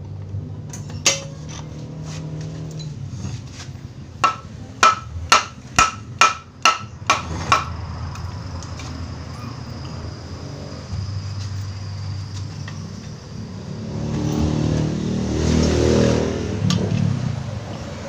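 A hammer striking metal about eight times in quick succession, roughly two blows a second, each blow ringing; one single blow comes earlier. A low steady hum runs underneath, and near the end a louder rumbling noise swells and fades.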